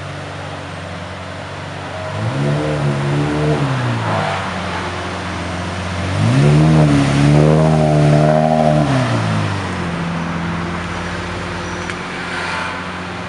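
Lamborghini Murciélago SV's 6.5-litre V12 idling and revved twice: a short blip about two seconds in, then a longer rev held for about three seconds before dropping back to idle.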